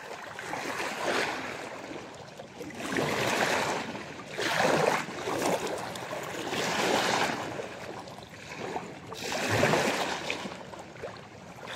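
Choppy sea waves washing in: a rushing wash that swells and fades about every two seconds.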